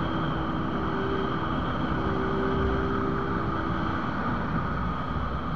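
Motorcycle riding along a road, recorded by the rider's on-board camera: a steady rush of wind and road noise with the engine's hum underneath.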